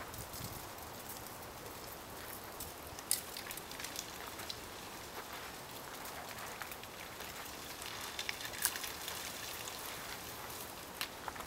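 Outdoor ambience: a steady hiss with scattered light clicks and crackles, a sharper click about three seconds in and a cluster near nine seconds.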